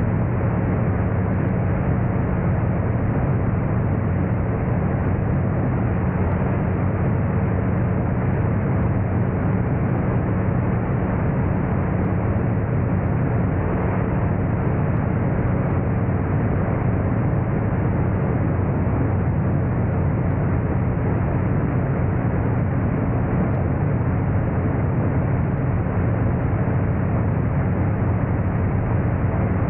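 Magni M-16 gyroplane in cruising flight: the steady, unchanging drone of its engine and propeller, with air rushing past the externally mounted microphone.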